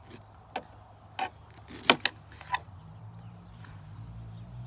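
Sharp clicks and snaps of a knife cutting into a freshly dug elecampane root, about six in the first two and a half seconds, the loudest about two seconds in. A low steady hum comes up under them and grows toward the end.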